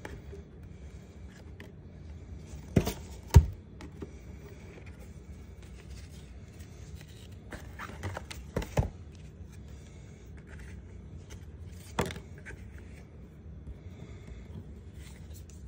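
Trading cards and their cardboard box being handled and set down on a tabletop: a few sharp taps and knocks, the loudest about three seconds in, another pair near nine seconds and one more at twelve, with faint card rustling between.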